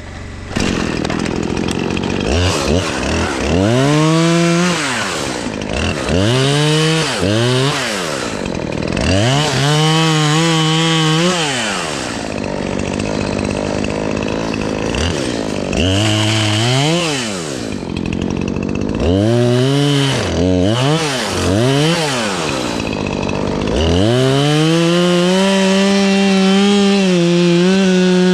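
Gas chainsaw revved in repeated bursts, climbing to full speed and dropping back to idle about seven times, then held at full throttle through the last few seconds, its pitch dipping slightly as it cuts into a tree limb.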